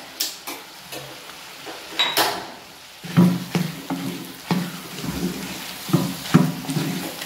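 Wooden spatula stirring chicken in a clay cooking pot, scraping in strokes about twice a second from about three seconds in, over a light sizzle. One sharp metal clink comes about two seconds in.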